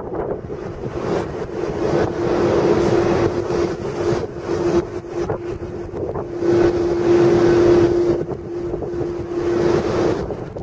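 Boeing 747-400 airliner on final approach, its four turbofan engines giving a steady tone over a rumbling jet noise. Gusty wind buffets the microphone in irregular surges.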